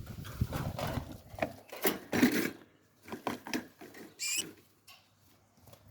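Rustling, scrabbling and light knocks as great tit fledglings are handled and moved out of a cage, with a brief high chirp about four seconds in.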